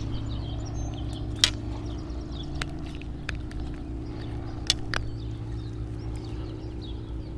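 Outdoor pond-side ambience: a steady low hum with faint bird chirps, broken by a few sharp clicks, the loudest about a second and a half in and again near five seconds, as a small bass is unhooked and handled.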